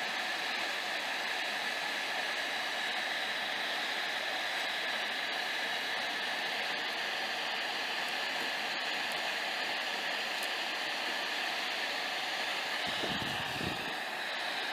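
Hot-air rework station blowing a steady hiss of hot air onto a PS4 circuit board to melt the solder under the HDMI encoder chip. A brief low rumble near the end.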